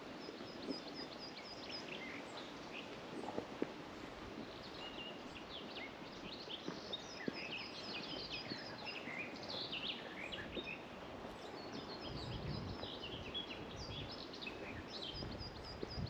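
Several small birds singing and chirping, with a rapid series of high repeated notes near the start and again near the end, over a steady outdoor hiss. Footsteps on a dirt path tick softly now and then, and a brief low rumble comes about twelve seconds in.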